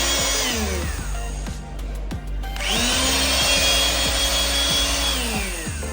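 Electric pump motor of a handheld hydraulic rebar cutter running in two runs. The whine winds down about half a second in, starts again with a rising pitch about three seconds in, holds steady, and winds down near the end.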